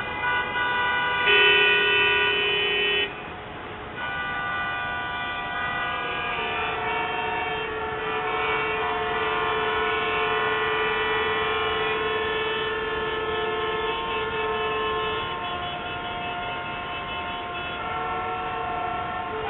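Many vehicle horns honking at once at different pitches, long held blasts overlapping. One loud blast stops about three seconds in, and a long single horn holds from about six seconds to about fifteen.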